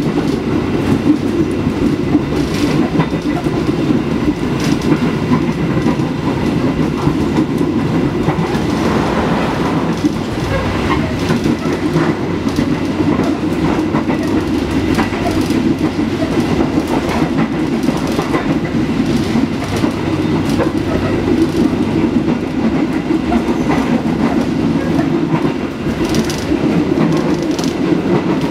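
Steady running rumble of a passenger train heard inside a 2016 INKA executive coach on the move, with occasional faint clacks from the wheels.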